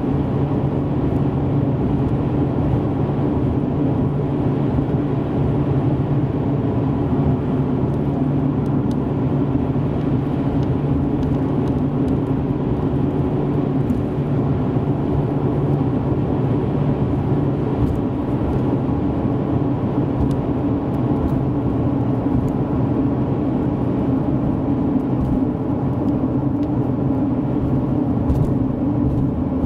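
Steady drone of a car driving, engine hum and road noise mixed. Its pitch shifts slightly partway through.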